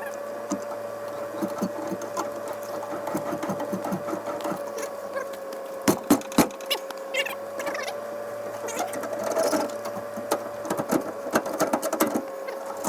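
Electric winch motor running with a steady, even whine, with scattered clicks and knocks from the cable and gear. The loudest knocks come about halfway through.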